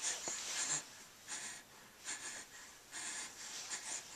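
Baby breathing noisily in a series of short, soft puffs while sucking and chewing on his fist.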